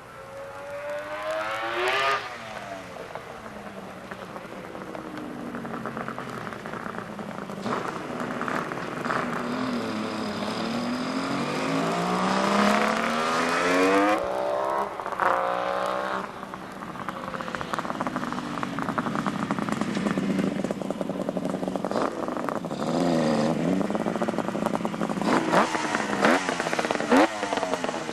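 1975 Kawasaki H1 500's air-cooled two-stroke triple running on the freshly rebuilt engine, revved up and down over and over with rising and falling pitch.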